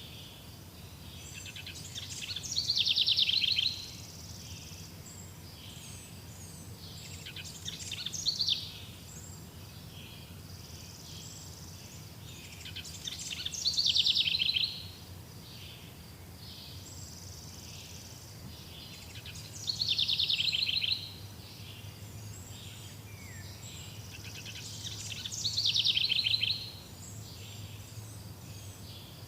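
Songbird singing a short, fast trilled phrase about every six seconds, five times, over a steady faint background of forest ambience.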